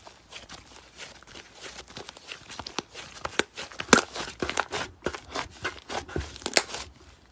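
Slime being squeezed and worked by hand, giving a rapid, irregular run of crackling clicks and pops that grows louder and denser partway through.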